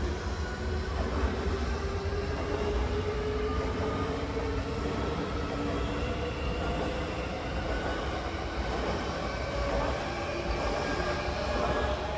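Two electric commuter trains passing each other on adjacent tracks: a steady rumble of wheels on rail, with several humming tones that drift slowly in pitch as the trains go by.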